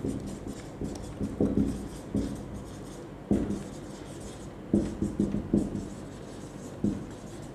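Marker pen writing on a whiteboard: short, irregular scratching strokes as a line of words is written out.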